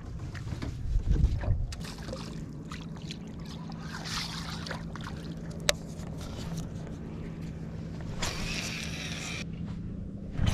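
Bow-mounted electric trolling motor humming steadily under a small aluminium fishing boat. Wind buffets the microphone about a second in, a single sharp click comes midway, and a brief hiss follows near the end.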